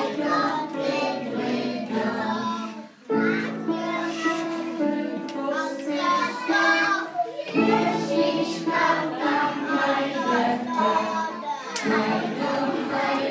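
A group of young children singing a song together, with short breaks between phrases about three seconds and seven and a half seconds in.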